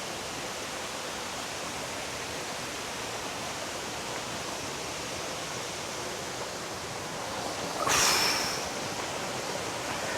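Thi Lo Su Waterfall's steady rush of falling water, with a brief louder burst of noise about eight seconds in.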